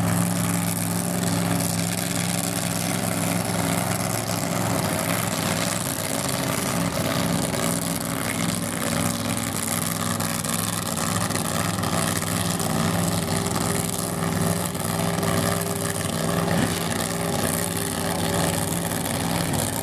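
Drag-racing funny car's V8 engine idling steadily in a low, even note, without big revs.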